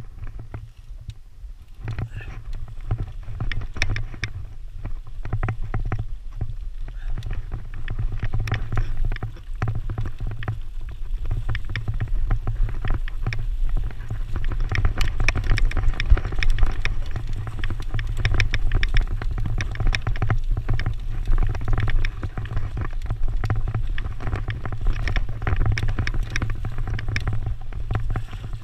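Mountain bike riding fast down a dry, leaf-covered dirt trail, its tyres rolling over leaves and twigs with a constant scatter of small clicks and rattles from the bike. Heavy wind rumble on the bike-mounted camera's microphone underlies it all. Both get louder over the first two seconds and then hold.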